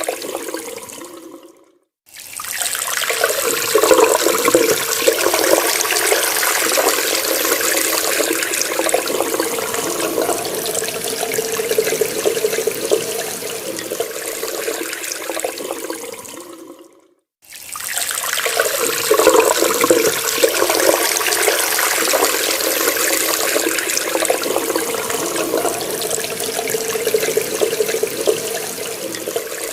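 Water running steadily from a tap. It cuts out to silence for about half a second twice, near the start and about halfway through, then starts again.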